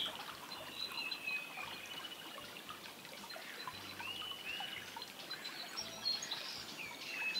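River water running steadily, with a few short bird calls.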